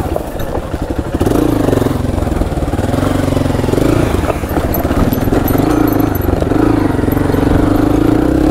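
Honda motorcycle engine running under way in a low gear, its pitch rising and falling several times as the throttle is opened and eased.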